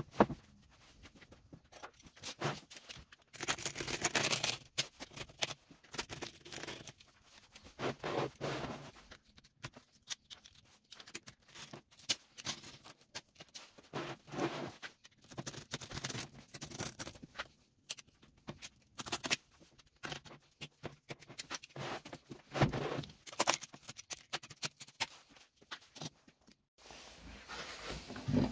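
Scraping and scratching in short, irregular bursts, with handling knocks, as a flat metal scraper is worked along the wooden mould frame around a cured epoxy tabletop.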